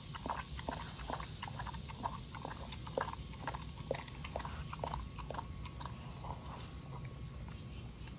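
A kelpie lapping carrot juice from a small glass bowl: quick wet laps, about three to four a second, stopping about five or six seconds in.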